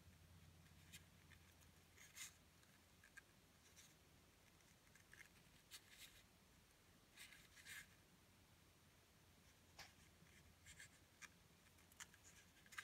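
Near silence with faint, scattered rustles and light scratchy clicks every second or so from a hand handling an antique-nickel metal pendant and its chain, over a low steady hum.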